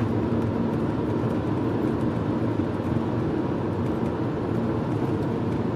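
Steady low rumble of road and engine noise from a car driving along, heard from inside the car.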